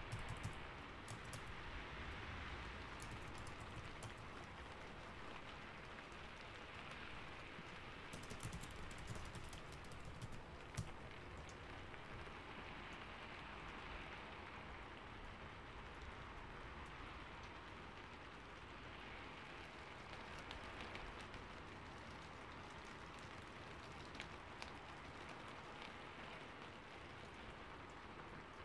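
Steady rain ambience with computer keyboard typing over it, the key clicks coming in bursts, mostly in the first ten seconds or so.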